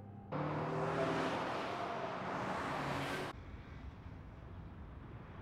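Car driving at speed: a steady rush of engine and road noise that starts suddenly and cuts off abruptly about three seconds in, leaving a faint low hum.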